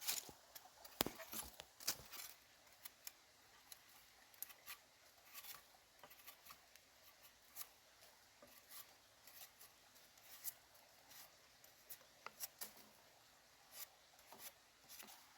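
Irregular light clicks and snips, one or two a second, with a few louder ones in the first two seconds.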